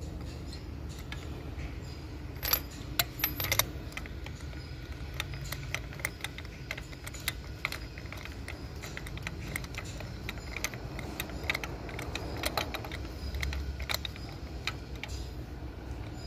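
Metal hand tools clicking and clinking as a spark plug socket and extension are worked in the spark plug wells of a Mercedes-Benz W210 engine's valve cover, with a louder run of clinks about two and a half seconds in. A steady low hum runs underneath.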